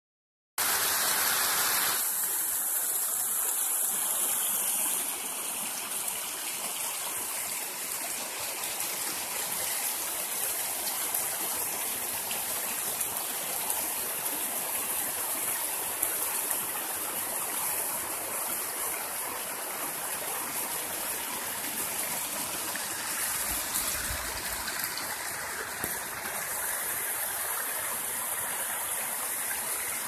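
Small rocky mountain stream running over stones and little cascades: a steady rush of water, starting about half a second in and a little louder for the first few seconds.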